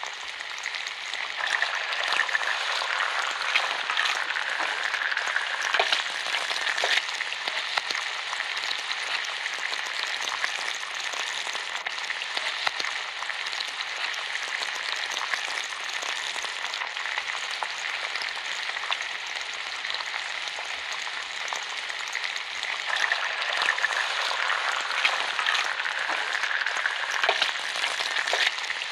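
Bacon frying: a steady sizzle full of small crackles and pops, a little louder at the start and again near the end.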